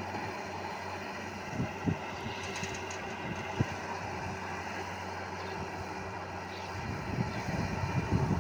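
Wheeled excavator's diesel engine running steadily as it digs sand, with a few dull knocks in the first few seconds and low rumbling bumps near the end.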